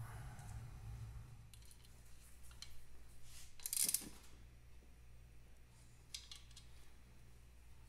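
Socket wrench on a long extension tightening a bolt at the exhaust pipe's mounting: scattered metallic clicks, the loudest a brief clatter about four seconds in, over a low steady hum.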